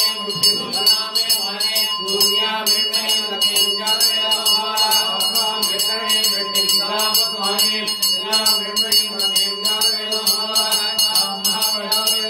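Male voices chanting Sanskrit mantras, with a puja hand bell ringing fast and without a break.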